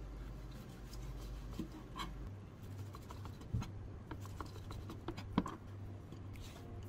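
Large knife slicing through cooked pork belly on a plastic cutting board: scratchy cutting sounds with scattered short taps as the blade meets the board, the loudest about halfway through and near the end.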